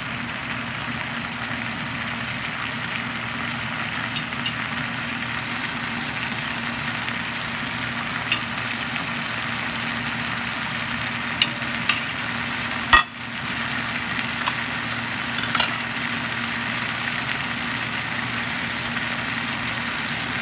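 Layers of fried eggplant, potato and meat sizzling steadily in a pot on a hot electric stove, over a steady low hum. A few light clicks, and one sharp knock a little past the middle.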